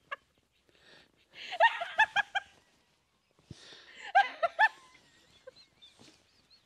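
Laughter: two bouts of quick, rhythmic 'ha-ha' pulses, one about one and a half seconds in and another near four seconds, with short quiet gaps around them.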